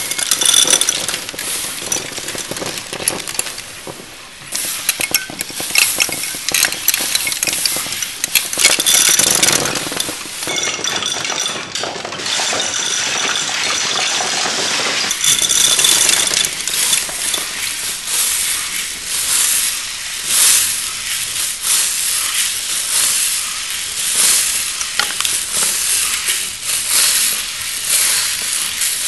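Wooden kinetic sculpture running: a dense, continuous clatter and clicking of wooden levers, dowels and pulleys knocking as the mechanism cycles. Near the end, small steel balls in a clear dish add a hissing rattle.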